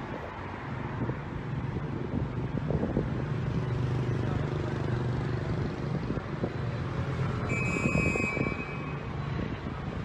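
Steady city traffic rumble with a constant low hum. About three-quarters of the way in, a short high-pitched tone sounds for about a second.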